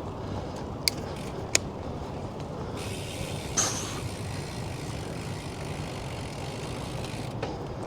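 Steady hum of road traffic and rolling noise heard from a moving bicycle, with two sharp clicks about a second in and a stretch of hiss in the middle.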